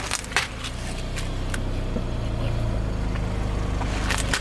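Car engine running steadily at low speed, with a few sharp cracks and crunches as the tyre rolls over and crushes objects, the last cluster near the end.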